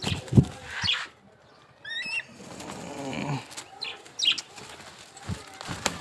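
A pet eagle's wings flapping as it flaps down off the handler's hand, with sharp knocks and a short high chirping call about two seconds in.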